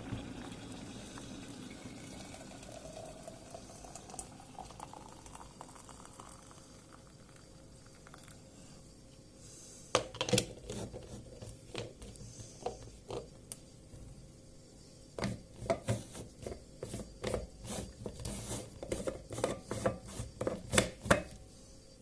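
Liquid poured into a vessel, its pitch rising as it fills, a few seconds in. From about halfway there is a run of sharp clinks and knocks of dishes and utensils, growing denser toward the end.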